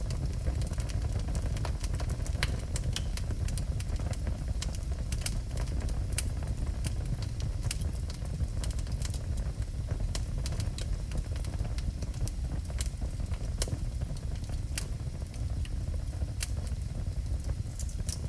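Wood fire burning in a fireplace: a steady low rumble with frequent, irregular sharp crackles and pops from the burning wood.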